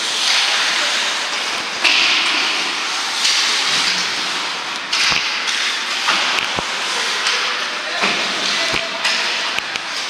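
Ice hockey skates scraping and carving on the ice in hissing bursts, with a few sharp clacks of sticks striking the puck.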